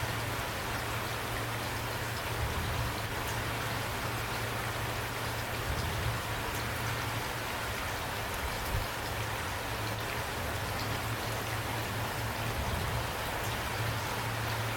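Steady rain falling, an even hiss with scattered drop ticks, over a steady low drone.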